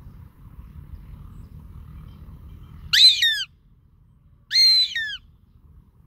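Goshawk calling: two loud, shrill calls about a second and a half apart, each a quick run of slurred notes falling in pitch.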